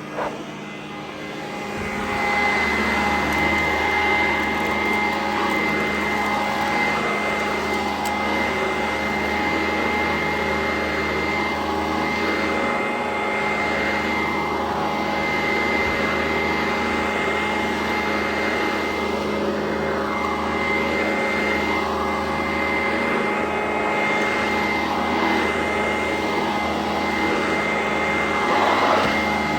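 Sanitaire SC899 commercial upright vacuum cleaner running, with a steady high-pitched whine over the motor noise. It is quieter at first, with a click just after the start, then comes up to full level about two seconds in and holds steady with small swells.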